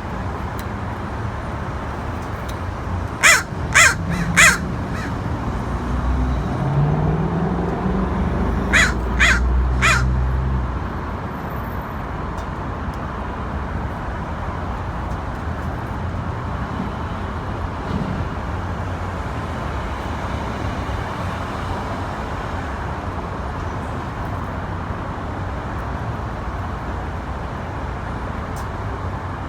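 Crows cawing: two runs of three quick caws a few seconds apart, over steady traffic noise, with a vehicle passing on a rising engine note in between.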